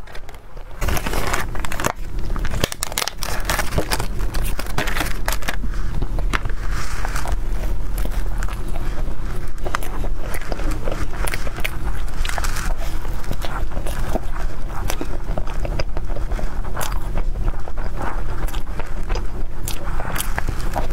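Close-miked eating: chewing and mouth sounds of a soft cream-filled matcha bun, a dense, steady run of small clicks and crackles starting about a second in.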